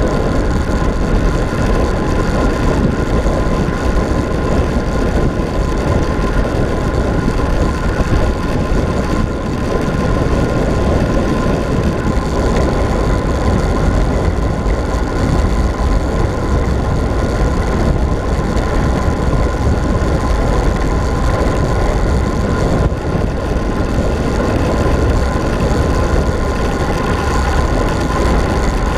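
Steady rush of wind buffeting the camera microphone, with tyre and road noise, on a road bike descending fast; a faint steady whine runs underneath.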